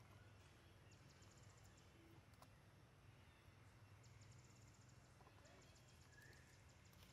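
Near silence: faint low hum, with a few short runs of faint, quick high-pitched ticking.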